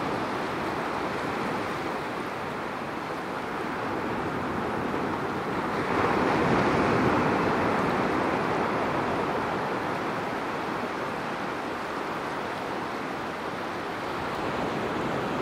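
Ocean surf breaking and washing in around the rocks of a jetty: a steady wash that swells about six seconds in as a wave comes ashore, then eases, and builds again near the end.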